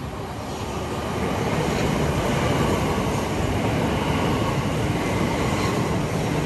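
Class 377 Electrostar electric multiple unit passing close below, with a steady rumble of wheels on rail. The rumble builds over the first second and a half, then stays loud and even.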